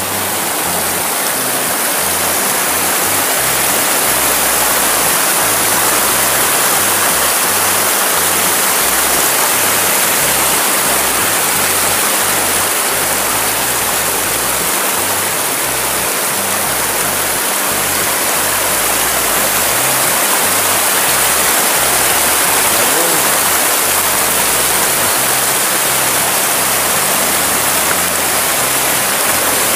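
Shallow rocky river rushing over stones in small rapids: a steady, even water noise.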